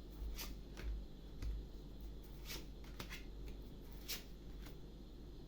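Tarot cards being handled: a handful of short, soft swishes and taps, irregularly spaced, as cards are shuffled or laid down.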